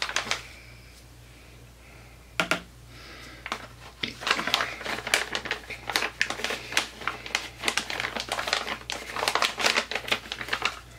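Ruby red mica powder being tapped and shaken out of its container over a bowl of soap batter: one sharp tap, then from about four seconds in a quick, irregular run of ticking and crinkling.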